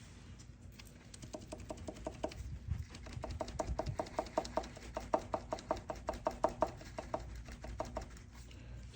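Rapid metal-on-metal clacking, about five or six knocks a second with a short ring, from a worn connecting rod bearing on a 6.0 LS2 V8: the excess clearance lets the rod knock against the crankshaft journal. The knocking starts about a second in and dies away near the end.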